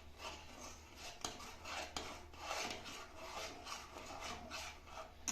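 A spoon stirring honey into boiled milk, scraping and rubbing against the vessel in a steady rhythm of about three strokes a second.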